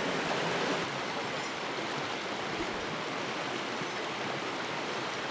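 Mountain headwater stream rushing over rocks and shallow riffles: a steady, even wash of running water.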